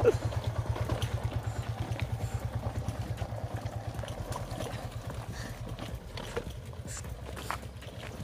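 Yamaha FZ V2 motorcycle's single-cylinder engine running at low, steady revs: a fast, even putter that slowly gets fainter, with a few faint knocks.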